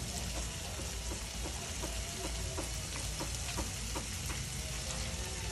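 Shrimp sizzling in a frying pan on a gas burner: a steady hiss broken by frequent small pops and crackles.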